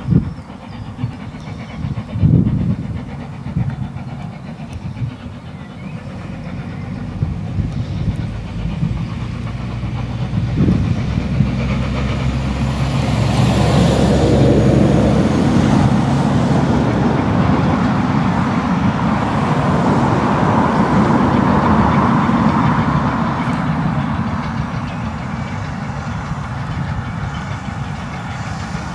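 Steam locomotive No. 88, an S&DJR 7F 2-8-0, working a passenger train under steam: its exhaust and steam hiss build as it approaches, loudest around the middle, together with the clatter of the train on the rails. A few sharp knocks come in the first ten seconds.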